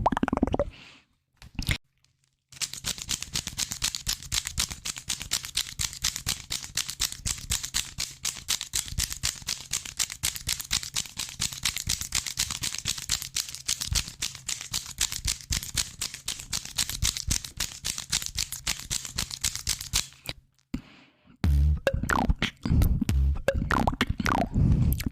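Rapid, dense crackling clicks close to the microphone, made as an ASMR trigger, over a faint steady hum. They stop suddenly, and after a short pause louder wet popping mouth sounds begin near the end.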